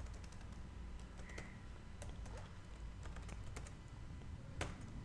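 Faint computer keyboard typing: scattered single keystrokes, with one louder click near the end.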